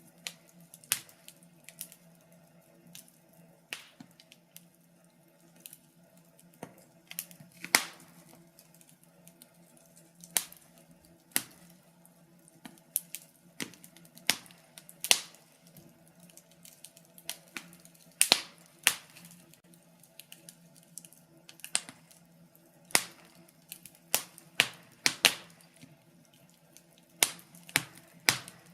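Wood fire crackling in a fireplace, with irregular sharp pops and snaps, sometimes several in quick succession, over a faint steady low hum.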